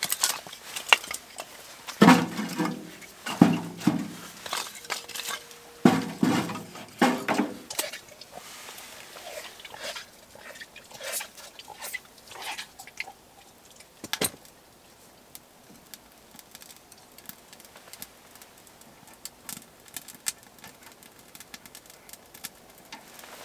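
Split kindling sticks clattering and knocking against each other and the steel wood stove as the firebox is loaded. The loudest knocks come in the first eight seconds, followed by softer clicks and rustles of small wood being placed, with one sharp knock midway.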